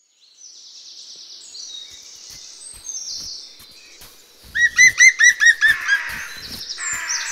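Woodland birdsong: several birds singing high trills, with a loud run of quick, repeated whistled notes about halfway through, then softer chatter.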